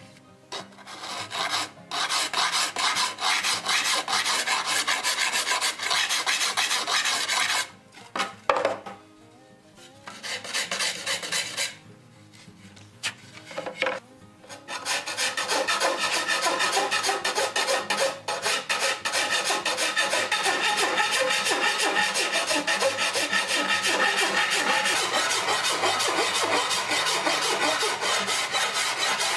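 Hand rasp being worked along the edge of a wooden buggy seat side, a dry, gritty scraping. The rasping runs for several seconds, breaks off into short strokes and a pause about halfway, then carries on steadily through the second half.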